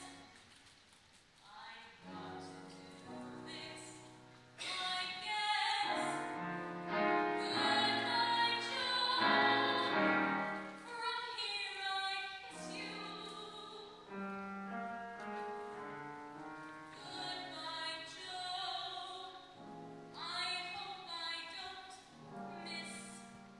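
Mezzo-soprano singing a Broadway show tune with piano accompaniment. The voice comes in about two seconds in and is loudest in the middle.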